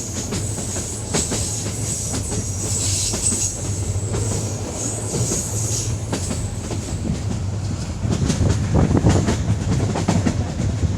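Train running along the track: a steady rumble with the wheels clicking over rail joints, the clicks getting louder about eight seconds in.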